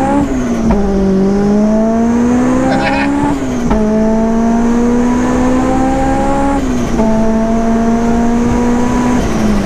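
Supercharged Honda S2000 four-cylinder, breathing through a Skunk2 header, test pipe and Mugen exhaust, pulling hard through the gears. The engine note climbs and drops at each of three upshifts, then eases off near the end. A faint high supercharger whine rises and falls with the revs over the wind noise of the open cockpit.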